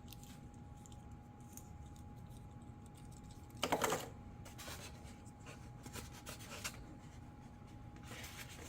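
Small plastic RC plane parts and their packaging being handled: a short burst of rustling about three and a half seconds in, then light clicks and rubbing.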